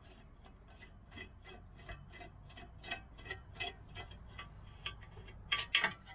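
Brake caliper bolt being spun out of its threads by hand, giving an even run of light ticks, about four a second, then a few louder metal clicks near the end as it comes free.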